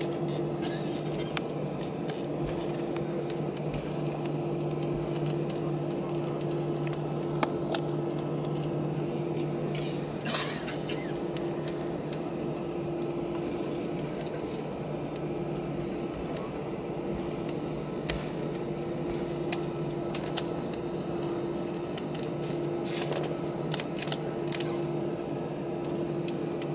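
Airbus A320 cabin noise with the jet engines at idle on the ground before takeoff: a steady hum carrying two held tones, the lower one fading somewhat about ten seconds in. A few faint clicks and rattles.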